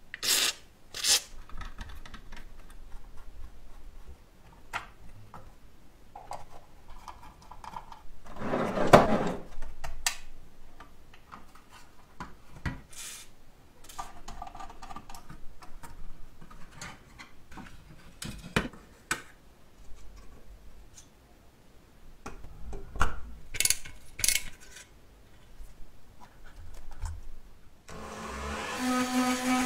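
Short hisses from a spray can of lubricant fired through a straw, then clicks, taps and scrapes of toy-car parts being handled and taken apart. Near the end a small rotary tool is switched on and runs at a steady pitch.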